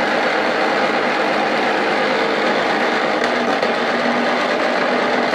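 Electric olive-scoring machine running steadily. From about three seconds in, green olives rattle inside it.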